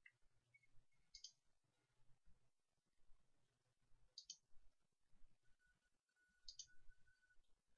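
Faint computer mouse clicks, three in all, about two seconds apart, each a quick double tick of press and release, as points are marked frame by frame in video-tracking software.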